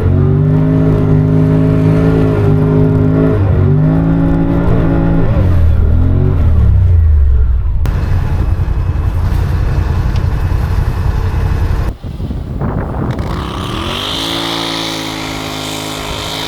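A UTV's engine running under way with a steady drone. About five seconds in its pitch falls as it slows, then gives way to several seconds of rough rumbling noise. After a sudden break near twelve seconds in, the engine note climbs again with a high whine above it.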